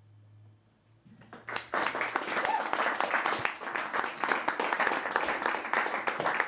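Audience applauding at the end of a song: a low guitar note dies away, then clapping starts about a second in and continues steadily.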